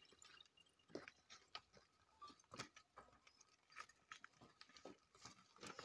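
Near silence with faint, irregular clicks and taps.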